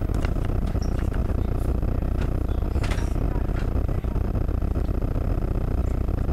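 Steady low rumble on the camera's microphone, with a few faint clicks in the first half.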